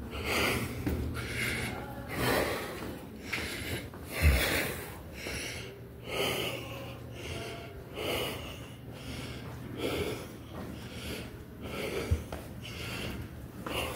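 A person breathing hard while climbing stairs, with heavy breaths about once a second and a couple of dull thuds from footsteps or the camera being bumped.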